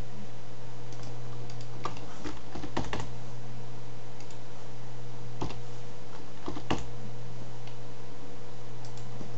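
Computer keys and mouse buttons clicking in short clusters, about two seconds in and again around five and a half to seven seconds, over a steady low hum.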